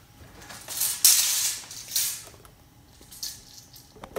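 Handling and rustling noise: a few brushing, scraping bursts, the loudest about a second in, then a short click near the end.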